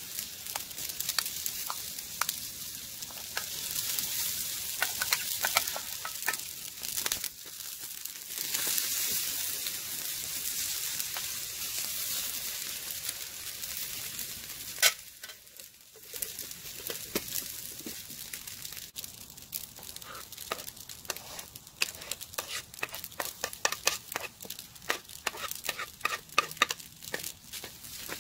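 Boiled macaroni frying in a hot metal tray over a wood fire: a steady sizzling hiss. In the second half the sizzle is quieter and a wooden spoon stirs and scrapes the pasta in the tray, giving quick irregular clicks.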